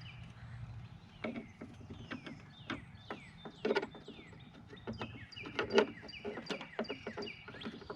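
Irregular light clicks and taps of a hand tool working the 4mm Allen head bolts on a motorcycle fairing, with birds chirping in the background.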